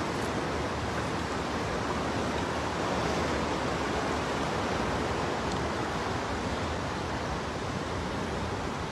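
Fast-flowing floodwater rushing and churning through a street in a steady, unbroken rush.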